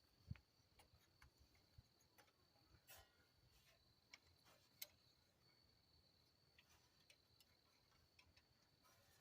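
Near silence with faint, scattered light clicks and ticks, like small metal parts being handled, over a faint steady high-pitched whine.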